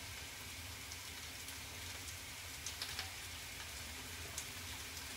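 Pork mince frying in a pan, a faint steady sizzle with a few small crackles, as the meat starts to brown.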